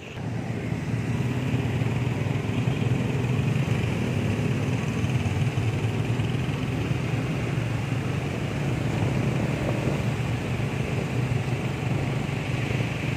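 Motor vehicle engine running steadily with road noise, as heard while riding along in traffic.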